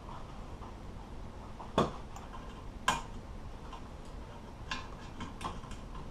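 Sharp clicks and light ticks of hand work on a car seat's plastic latch trim and its small screws. There are two louder clicks about two and three seconds in, then a string of fainter ticks.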